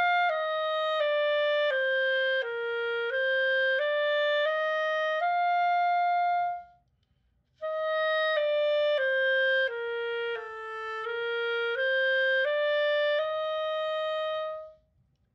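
Clarinet playing a slow finger drill: a run of single notes stepping down and back up, about one note every two-thirds of a second. The run is played twice with a short break between, and each run ends on a held note.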